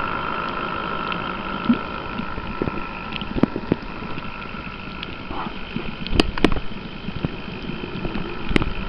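Underwater sound picked up through a waterproof camera: a steady high whine with scattered sharp clicks and knocks, the loudest a pair about six seconds in and one near the end.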